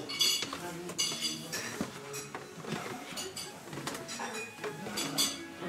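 Dishes and cutlery being handled, a string of short bright clinks of china and metal, the loudest about a quarter second in, about a second in, and near the end.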